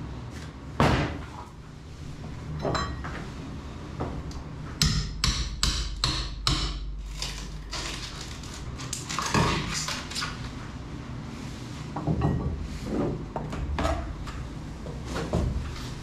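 Hammer blows knocking old fiberglass and foam off a boat hull's overhead, with a quick run of about six strikes around the middle and single knocks spread through the rest.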